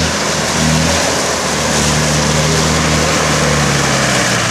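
Land Rover Discovery's engine pulling under load through deep mud, its revs shifting up and down briefly and then held steady.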